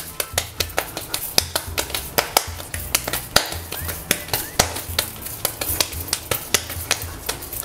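Soft yeasted bread dough for tingmo being kneaded and beaten by hand on a kitchen counter: an irregular run of sharp slaps and knocks, several a second.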